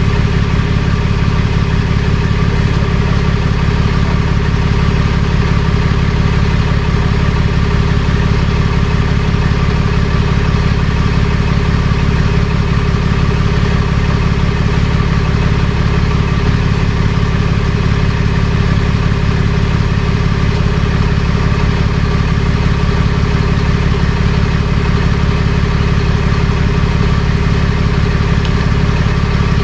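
Tow truck engine idling steadily, with an even, unchanging note.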